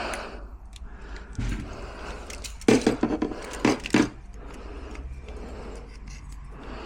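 Metallic clunks and rattles from a door lock mechanism being forced, in a quick cluster about three seconds in. The lock's gearbox is seized solid and will not turn.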